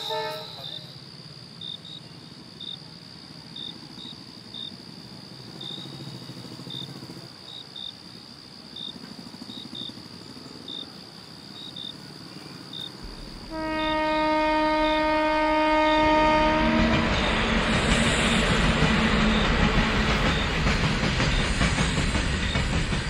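Crickets chirping over a quiet night background; about thirteen seconds in a passing train's horn sounds one long note for about three seconds, and the train goes by with a loud, steady rumble of wheels and cars.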